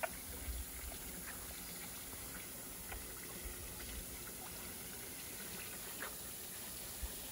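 High-pressure misting nozzles along a pergola spraying fine mist with a steady, quiet hiss.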